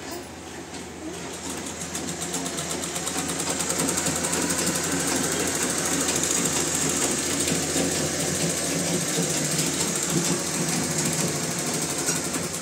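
Bharat sewing machine running fast, stitching a saree in a rapid, even clatter. It picks up and grows louder over the first few seconds, then runs steadily.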